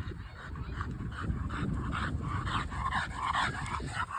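An American Bully puppy giving short, repeated high cries, coming more often in the second half.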